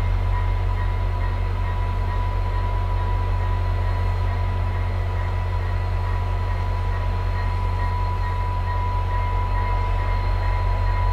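VIA Rail EMD F40PH-2 diesel locomotives idling at a standstill: a steady low diesel drone with a thin, steady high-pitched tone over it.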